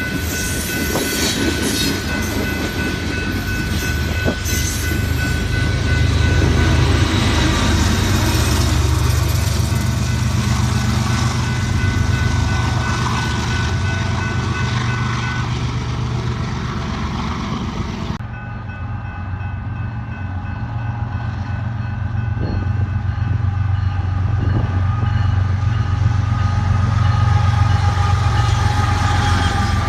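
Diesel freight locomotives and train running past, a loud steady low engine drone with thin steady high-pitched tones above it. About 18 s in the sound cuts abruptly to another passing train with the same deep drone.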